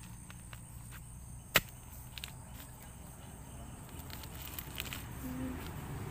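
A steel digging bar jabbing into the soil to dig out a bamboo shoot: one sharp strike about a second and a half in, then a few faint knocks.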